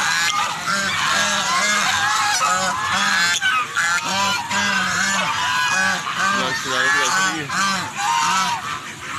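A flock of domestic ducks quacking, many short calls overlapping without a break.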